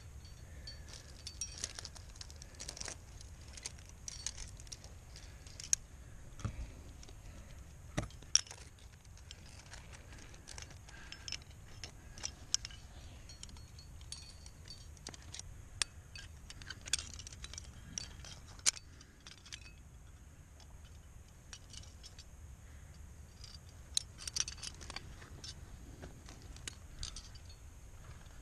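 Metal climbing gear on a trad rack, carabiners and cams, jangling and clinking in irregular sharp clicks as the climber moves, over a low steady rumble.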